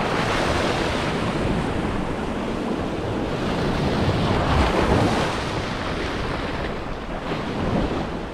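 Wind blowing across the microphone over small surf washing onto a sandy shoreline, a steady rushing noise that swells a little about halfway through.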